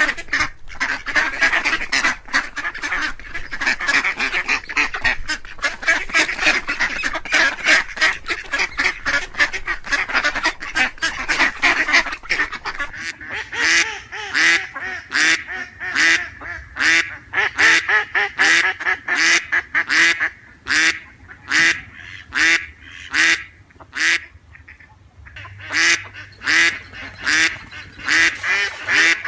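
A group of ducks quacking: many calls overlap at first, then about halfway through they thin to separate quacks at about two a second, with a few brief pauses.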